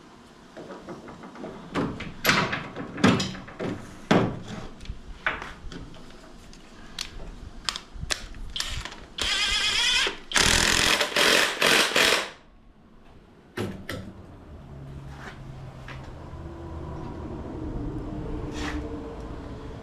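Metal tools clicking and clinking, then a pneumatic impact wrench hammering in several loud bursts about halfway through, driving a socket on a wheel nut. A low steady hum follows near the end.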